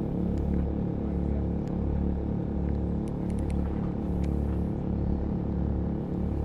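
Maxpeedingrods 3500-watt portable generator engine running steadily, with a few faint ticks over it.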